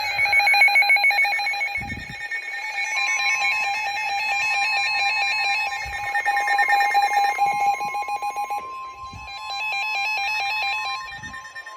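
Several NOAA weather radio receivers sounding their electronic alert alarms together, a mix of warbling and pulsing beeps, for a broadcast warning. About three seconds in, the steady Weather Radio warning alert tone (1050 Hz) comes in and holds, while some of the beeping patterns stop a little before the end.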